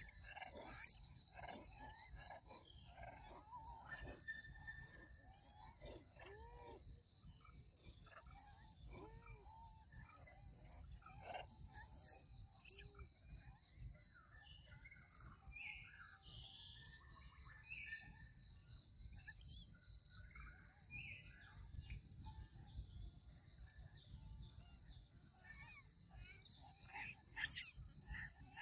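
A high-pitched insect call, pulsing fast and evenly without let-up, breaking off briefly three times, about two and a half, ten and fourteen seconds in. Faint short chirps and calls sound underneath it.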